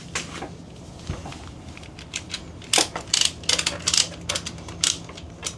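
Retractable ratchet strap being worked: its ratchet mechanism gives a few sharp clicks, then a quick, irregular run of clicks from about three seconds in as the strap is tightened.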